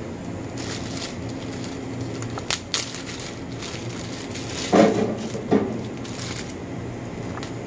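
Plastic zip-top bag crinkling and rustling as breaded chicken pieces are tipped out of it into a deep-fryer's wire basket, with a few sharp clicks as pieces land. A steady low hum runs underneath, and two short pitched sounds come about two-thirds of the way through.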